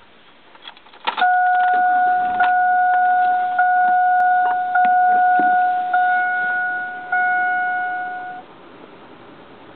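Two-way radio hand-held controller's speaker sounding a loud, steady electronic tone for about seven seconds, with a brief break about once a second, while the unit powers up and its display comes on. A few clicks come just before the tone starts.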